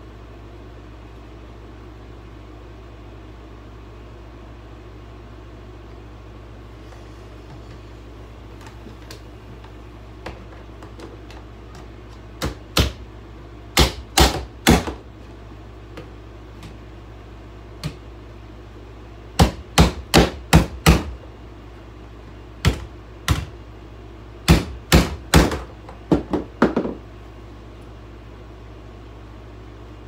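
About twenty hammer blows on an old hair dryer being broken apart. They come in irregular clusters of two to five, starting a little before halfway and stopping a few seconds before the end, over a steady low hum.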